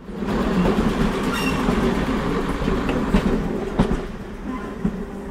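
Heritage diesel multiple unit running past, its diesel engines giving a steady drone with a few sharp clicks of the wheels over rail joints. It grows quieter after about four seconds.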